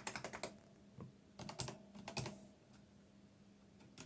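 Typing on a computer keyboard: a quick run of keystrokes, a few more about a second in, then another run, before the keys go quiet for the last second and a half. A faint steady hum runs underneath.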